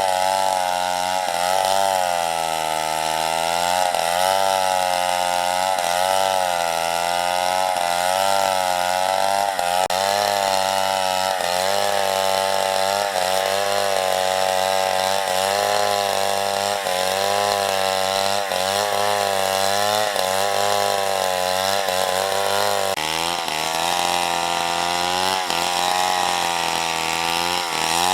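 Two-stroke chainsaw running at high revs and cutting wood. Its pitch dips and comes back up every second or two as the chain bites and bogs under load, with a sharper drop and recovery near the end.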